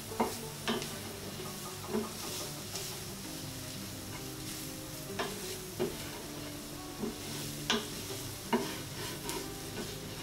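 Wooden spatula stirring diced vegetables sautéing in oil in a steel pan: a steady light sizzle, with irregular scrapes and knocks of the spatula against the pan, about ten in all.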